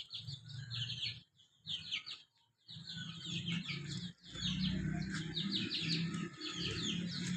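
A flock of small aviary birds chirping in quick runs of short, high, downward twitters, over a low steady hum.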